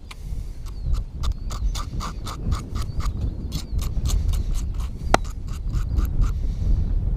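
Hook file rasping back and forth across the hook point of a hollow-body topwater frog lure: quick short strokes, about five a second, sharpening the hook. The strokes stop near the end, and one sharper click comes about five seconds in.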